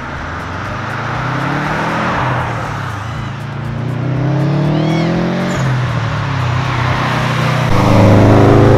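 2017 Subaru STI's turbocharged 2.5-litre flat-four with an Invidia exhaust accelerating through the gears: the engine note climbs, drops at gear changes about three and five and a half seconds in, and climbs again. It is loudest near the end.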